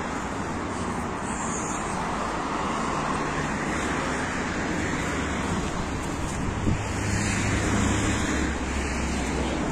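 Steady road traffic noise, with a low engine rumble under it.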